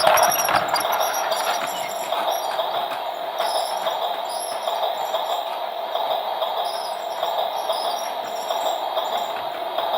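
Toy train running, its small motor whirring steadily.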